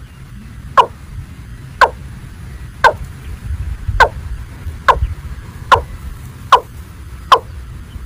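Watercock calling: a short note that sweeps downward, repeated about once a second, eight times and slightly faster toward the end, over a low wind rumble.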